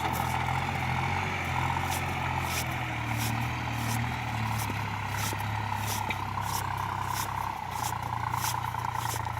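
New Holland TT4.50 tractor's diesel engine running steadily, with a constant whine above it and light regular ticks. The engine note shifts slightly about seven and a half seconds in.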